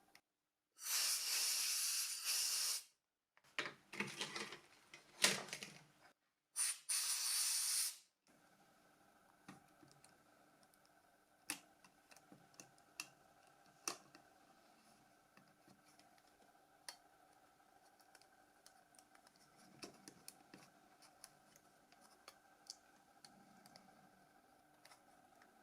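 Three short bursts of hissing in the first eight seconds, then scattered small clicks and taps of small plastic phone parts being handled and fitted.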